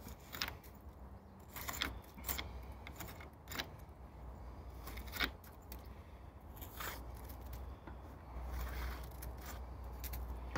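Metal jointer scraping through fresh mortar joints between bricks as the joints are struck, in short, irregular strokes, with a low steady rumble underneath.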